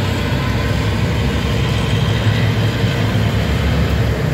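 Boat engine running steadily under way: a continuous low rumble, with wind and water noise over it.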